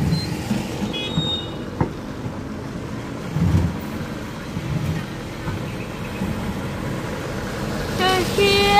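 Cabin noise inside a moving electric tricycle: a steady rumble of road noise with occasional knocks and rattles. Near the end a child calls out in a high voice.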